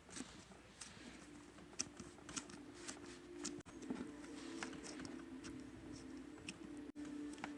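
Slime being squeezed and pressed by hand, giving a run of faint, quick crackles and small popping clicks. A faint steady low hum runs underneath.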